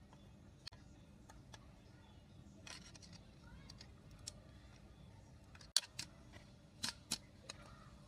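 Scattered sharp clicks and small knocks of laser printer parts being handled during disassembly, with a burst of louder clicks a little past halfway.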